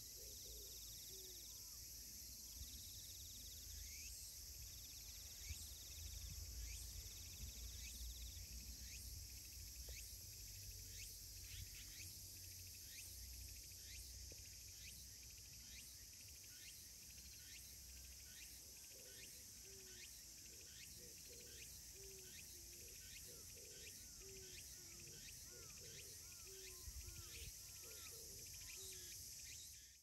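Faint outdoor ambience: a steady high insect hiss with short chirps repeating about twice a second, over a low wind rumble.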